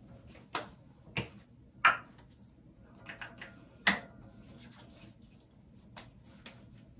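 A skincare bottle being handled: several sharp clicks and knocks, the loudest about two and four seconds in, with fainter taps near the end.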